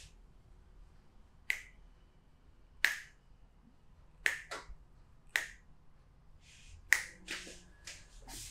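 A massage therapist's hands making sharp snapping pops, about nine in an uneven rhythm, some in quick pairs, the loudest near three seconds in and again near seven.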